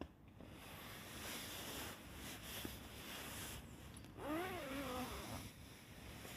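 Nylon hammock and cocoon fabric rustling and crinkling as he shifts in it, with a short pitched call rising then falling about four seconds in.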